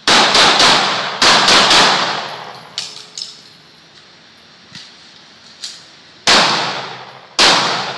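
Pistol shots with echoing tails: two fast strings of three shots in the first two seconds, a few faint sharp cracks in the middle, then two more single shots about a second apart near the end.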